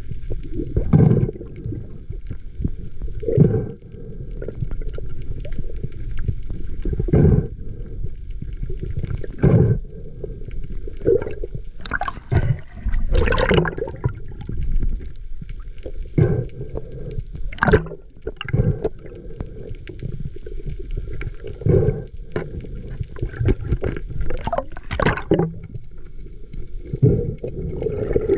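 Underwater water rush and gurgling through the camera's housing, broken by irregular short surges every second or two as a spearfisher hauls a speared dogtooth tuna in on the shooting line.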